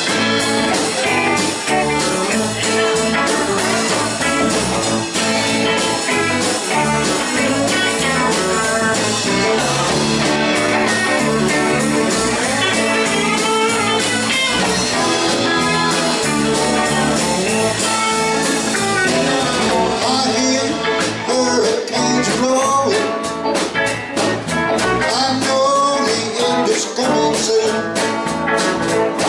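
A live country band playing: two electric guitars, an electric bass guitar and a drum kit, with a steady drum beat that comes through more plainly in the second half.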